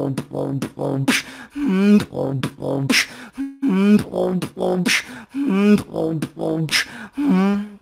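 Beatboxing: mouth-made drum sounds with sharp snare hits on a steady pulse, interleaved with sung, sliding vocal notes.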